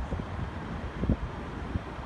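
Wind buffeting the microphone in uneven low gusts, with one stronger gust about a second in.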